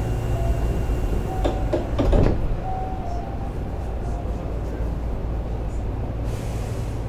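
Inside a Hankyu 7000 series electric train car: a steady low hum, with the sliding doors thudding shut about a second and a half and two seconds in.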